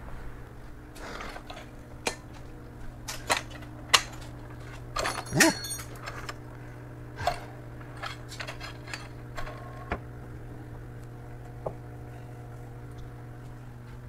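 Scattered metal clanks, clicks and knocks as a tall steel support stand is carried in and set up under a car on a lift, over a steady low hum.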